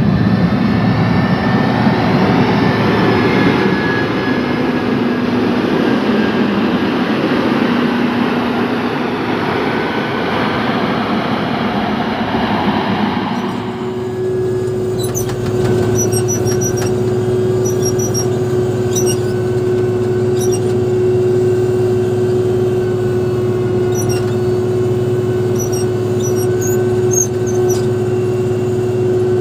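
Motor grader's diesel engine running, heard first from outside as the machine works. About halfway through it changes to the sound inside the operator's cab: a steady engine drone with a held tone and a few light ticks.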